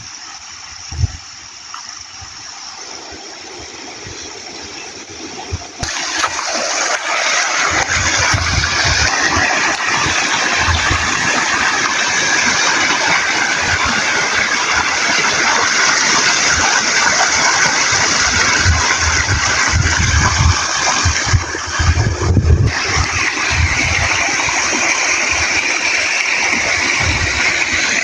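River water rushing and splashing as a steady, loud rush, rising sharply about six seconds in, with scattered low thumps underneath.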